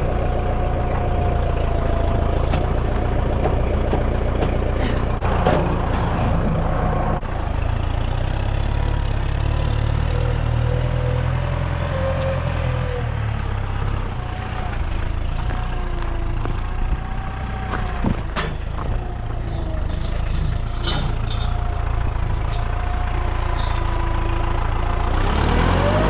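Kubota farm tractor's diesel engine running steadily, with a wavering whine over it and a few sharp clicks and knocks about three-quarters of the way in.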